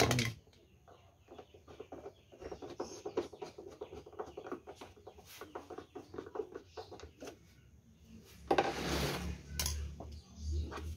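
Quick irregular clicks and ticks of a screwdriver fastening the plastic control panel on a Swan F16 electric sprayer tank, after a sharp knock as the panel snaps into place. About eight and a half seconds in, a louder scraping rustle as the plastic sprayer is shifted on the concrete floor.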